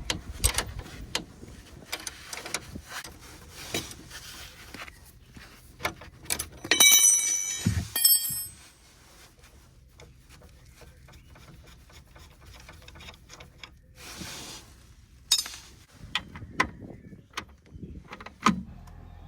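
Spanner work on a seized drop link nut, its stud held with an Allen key: a run of quick metal clicks and knocks, then about seven seconds in a loud ringing metallic clink, followed by scattered small knocks and scrapes of tools on metal.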